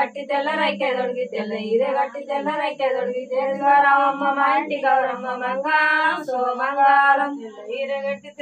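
Group of women singing a Telugu mangala harathi devotional song together, unaccompanied, in short repeated phrases.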